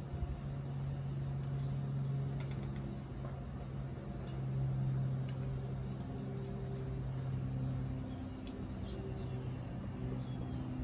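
A steady low mechanical hum, with faint sharp ticks scattered over it as an amazon parrot crunches dried fruit in its beak, and a couple of short, faint bird chirps near the end.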